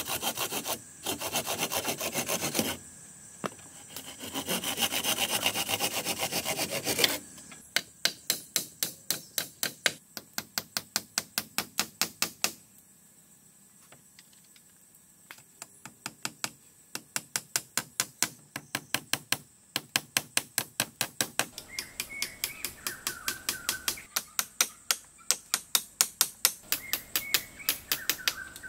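Wood being worked by hand with a cutting tool: a steady rasping at first, then several runs of rapid, regular back-and-forth strokes, about five a second, broken by pauses. Birds chirp over the strokes in the later part.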